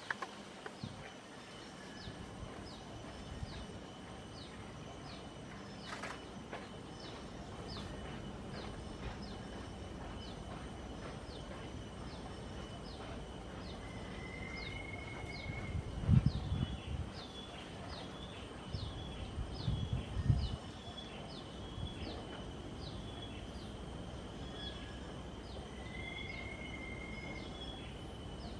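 Outdoor wetland ambience. A short, high, falling chirp repeats about once a second over a steady high insect-like drone. Two longer whistled notes come through, one around the middle and one near the end, and a few low thumps fall in the second half.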